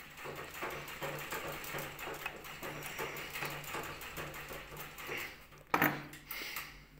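Screwdriver turning the steel screws of a sewing machine's rotary hook retaining plate: a fast, scratchy metal-on-metal clicking of the blade working in the screw slots, with a sharp knock just before the end.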